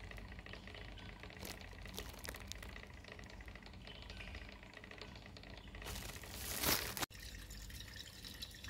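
Faint bubbling and swirling of a hot acetone, epoxy and carbon-nanotube mixture being stirred by a magnetic stir bar at 700 rpm on a hotplate stirrer, as the acetone boils off. Near the end a louder rustling hiss swells for about a second and then cuts off abruptly.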